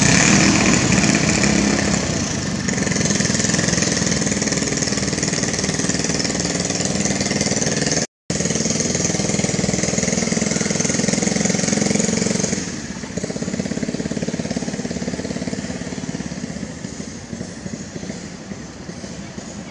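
Steady motor-vehicle engine noise, dropping noticeably in level about two-thirds of the way through.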